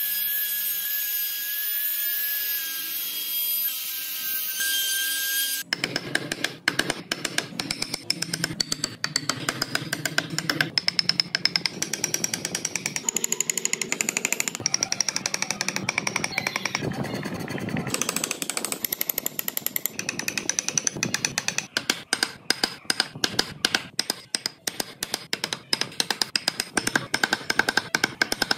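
Woodworking power tools shaping a wooden car body: for the first six seconds or so a small high-speed motor whines steadily, then the sound switches abruptly to rapid chattering and clicking as a tool bites into the wood.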